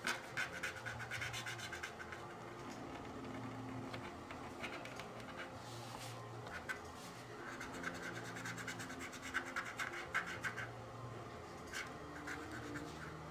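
Felt-tip marker scratching across a coloring-book page in runs of quick back-and-forth strokes, easing off in the middle.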